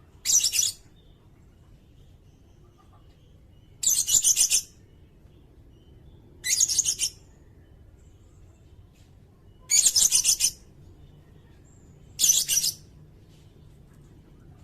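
Sirindet bird calling: five short, very high, rapid trills, each about half a second long and a few seconds apart.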